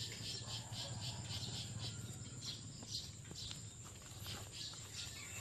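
Insects chirping faintly outdoors, a steady pulsing call of about four pulses a second.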